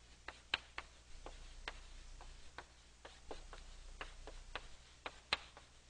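Chalk tapping and clicking against a blackboard as words are written: short sharp ticks at about two a second, unevenly spaced, with the loudest about five seconds in.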